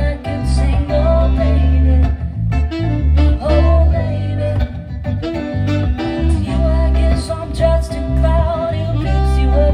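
Live band playing a soul-pop song: a female lead vocal over electric guitar and a strong electric bass line.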